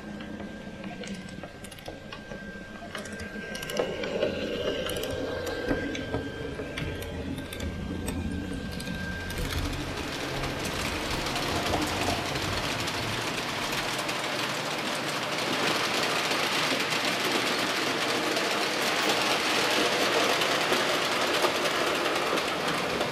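Märklin HO scale model trains running: an electric motor's steady whine with wheels clicking over the track, then, after about nine seconds, a louder, steady rolling noise of a model train running through.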